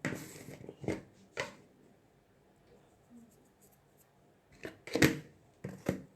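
Kitchen utensils handled over a bowl while chaat ingredients are added: a few separate short clinks and rustles, loudest about five seconds in.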